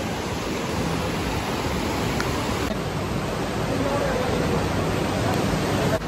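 Steady rushing of a fast-flowing river with white water, with faint voices in the background.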